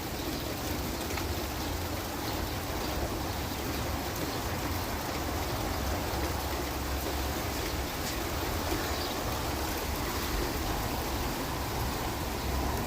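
Thunderstorm rain pouring down steadily, with scattered ticks of drops striking nearby surfaces.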